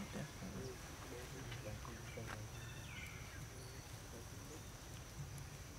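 Faint forest ambience: a steady high-pitched drone, like insects, with a few short falling chirps, the clearest about three seconds in, over a low background rumble.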